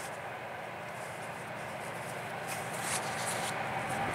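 2TE10U twin-section diesel-electric locomotive approaching with a loaded tank-car train: a steady engine and running rumble slowly growing louder as it nears.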